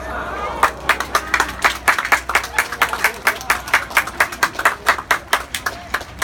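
Hands clapping steadily in time, about four claps a second, as the raised pyramid formations are held up.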